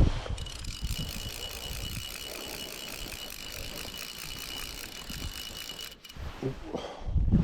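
Fly reel's click-and-pawl ratchet buzzing in a fast, even run of clicks while a hooked trout is being played, stopping about six seconds in. Wind rumbles on the microphone underneath.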